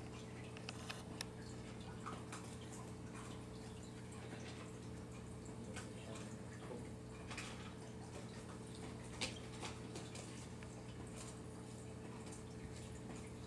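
Raccoon eating cat food from a bowl: scattered faint clicks and crunches as it picks up and chews the food, a few sharper ones about a second in and near nine seconds, over a steady low hum.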